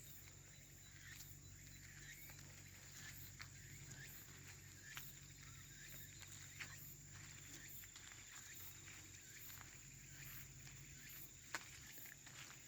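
Near silence: faint outdoor background with a steady high-pitched hum, a low hum that fades about halfway through, and scattered soft clicks.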